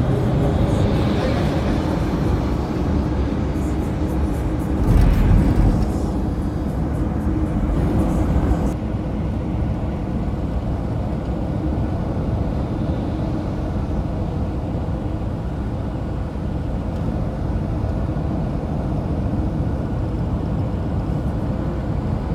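Steady low rumble of tyres and engine from a car driving at highway speed, with a brief louder swell about five seconds in and a slightly quieter, even drone after about nine seconds.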